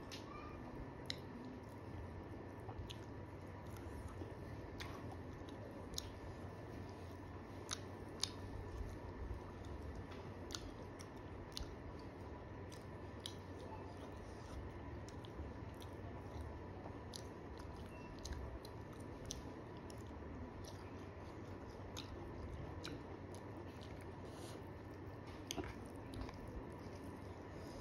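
Close-up chewing of a mouthful of rice and chicken eaten by hand, with many short, sharp wet mouth clicks and smacks scattered irregularly throughout.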